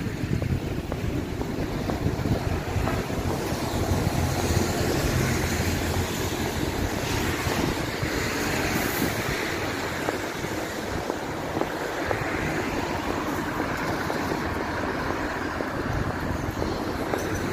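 Wind buffeting the microphone over road traffic noise, with a vehicle's hiss swelling and fading around the middle.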